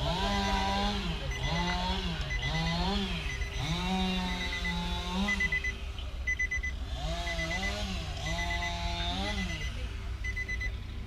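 Chainsaw running at high revs, its engine pitch sagging and recovering again and again as it cuts under load. A high electronic beeping repeats in short groups over it.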